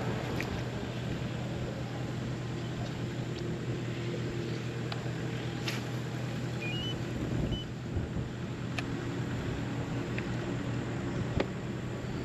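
Bow-mounted electric trolling motor on a bass boat running with a steady low hum, with a few faint clicks scattered through it.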